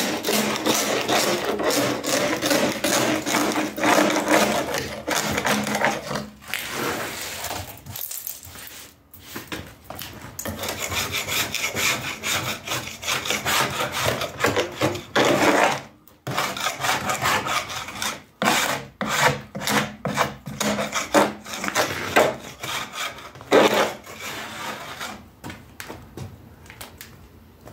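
A hand scraper scraping hardened granite-composite flash off the edge of a fiberglass sink mold, in repeated strokes. There are short breaks about 8 and 16 seconds in, and the strokes come in shorter, choppier runs in the second half.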